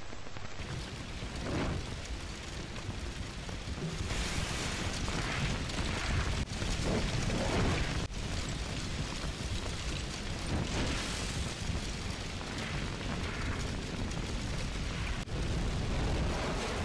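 Low rumbling and muffled explosion-like booms over a steady hiss, swelling and fading several times a few seconds apart.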